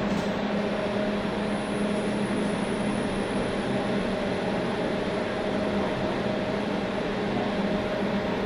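A lift car travelling in its shaft, with the steady hum of its KONE EcoDisc gearless traction motor. A faint high whine joins the hum about half a second in.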